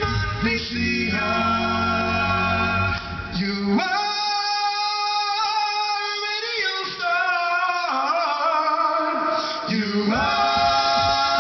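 Male a cappella vocal band singing live into microphones in close, held harmony. A low bass part drops out about four seconds in, leaving only the higher held chords, and comes back near the end.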